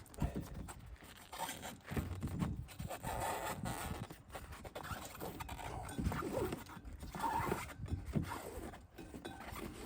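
A tire lever and hands working a rubber cart tire off its wheel rim: irregular knocks, scrapes and rubbing.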